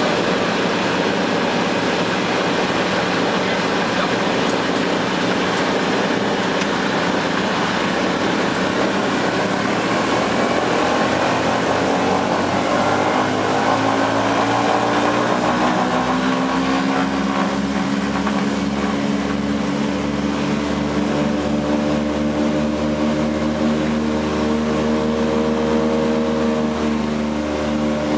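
Douglas DC-3 Dakota's twin radial piston engines and propellers at take-off power, heard from inside the flight deck: a loud, steady engine noise. About halfway through, a pitched drone comes out of it and rises slightly in pitch, and the level eases a little near the end.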